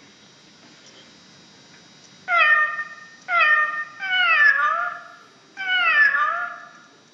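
Novelty cat alarm clock going off, its alarm a recorded cat meowing: four meows starting about two seconds in, the later ones falling and wavering in pitch.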